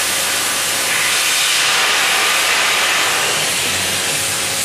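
CNC cutting torch burning through a steel beam: a loud, steady hiss.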